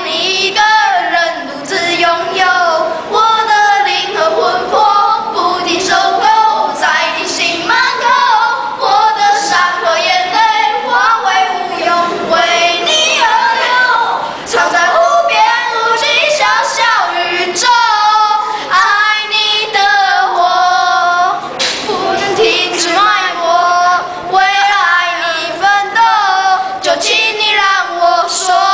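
Two young boys singing a song together, their voices carrying the melody in continuous phrases.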